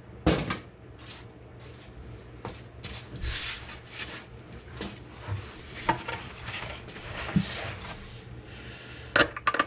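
Metal hand tools clinking and knocking, with a quick run of sharp clicks near the end.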